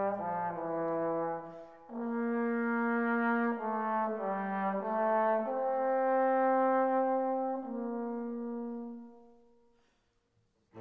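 Background music: a slow brass melody of long held notes, several sounding together, that fades out about nine seconds in.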